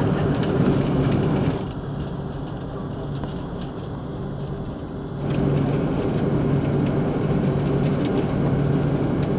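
Cabin noise aboard an Airbus A330-300 taxiing on the ground: a steady low hum from the engines at idle under a rushing noise. The rushing hiss drops off for a few seconds about two seconds in, then comes back.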